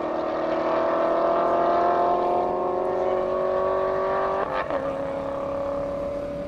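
Chevrolet Corvette C7's V8, fitted with a Capristo exhaust, at full throttle in a drag run, its pitch climbing steadily. About four and a half seconds in there is an upshift with a sudden drop in pitch, and then the engine pulls on in the next gear, fading as the car moves away.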